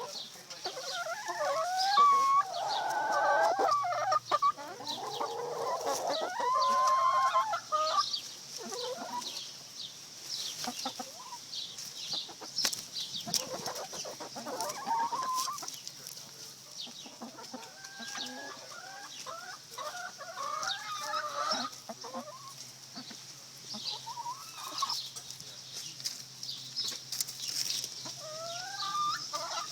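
Chickens clucking and calling in a drawn-out, sing-song way, loudest and busiest over the first eight seconds, then quieter scattered calls.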